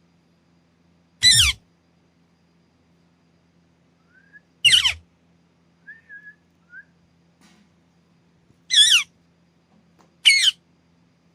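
Green ringneck parakeet giving four loud, short screeches, each falling in pitch, with a few soft short whistles between the second and third.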